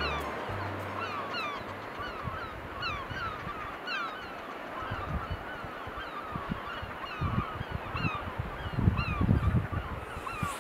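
A flock of wild geese calling, with many short honks overlapping several times a second. Low rumbles join in near the end.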